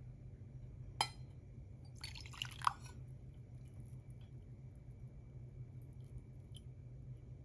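Glass coffee server and ceramic cup being handled: a sharp tap about a second in, then a brief glassy clinking with a little liquid sound around two to three seconds in, over a low steady hum.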